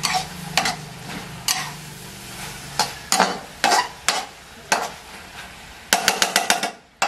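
Metal spatula scraping and clinking against a wok as chicken pad kra pao (holy basil stir-fry) is stirred, in irregular strokes, with a quick run of about six clinks near the end.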